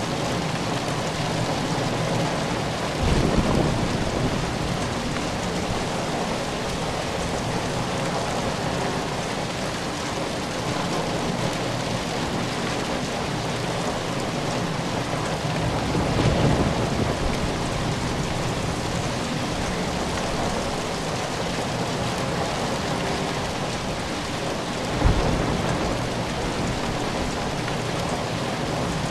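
Steady rain, with low rumbles of thunder about three seconds in and again midway, and a short sharper thunder clap near the end.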